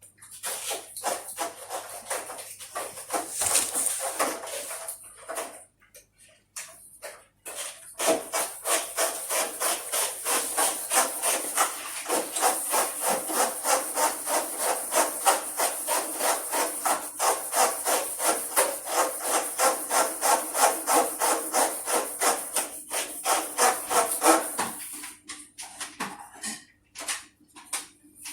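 Brisk back-and-forth scrubbing, a few scattered scrapes at first, then fast even strokes, about three a second, from about eight seconds in until near the end: a brush working over air-conditioner parts being cleaned.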